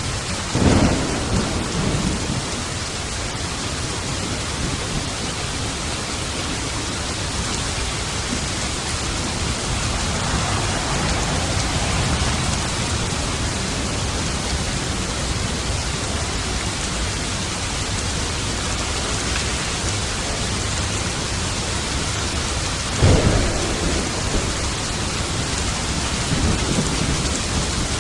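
Steady heavy rain with two claps of thunder, one right at the start and one near the end, each rumbling off over a couple of seconds.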